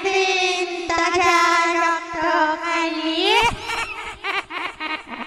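A long, held, voice-like wail with a wavering pitch that slides upward about three seconds in. It breaks into a quick run of sharp clicks, then a shorter held note near the end.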